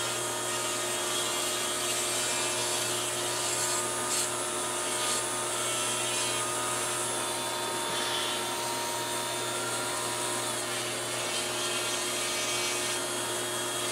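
Foot-pedal variable-speed rotary tool running steadily, its small bit grinding mould lines and sprue nibs off a plastic model part. The motor whine drops slightly in pitch about ten seconds in.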